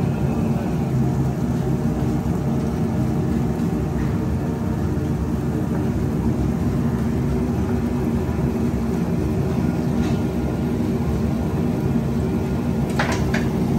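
Steady low machine hum and rumble of commercial kitchen equipment, with the gas range's burners lit, and a few short clicks about a second before the end.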